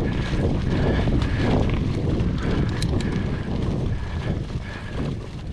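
Mountain bike being ridden on an off-road trail: steady tyre and drivetrain rumble, with wind buffeting the action camera's microphone and a few sharp clicks and rattles. It eases off slightly near the end.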